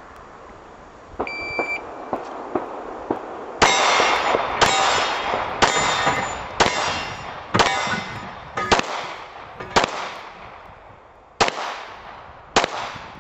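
An IPSC shot timer beeps briefly about a second in to start the stage. About two seconds later a pistol fires nine single shots, roughly one a second, with a longer pause before the last two. Each shot is followed by a short ringing tail.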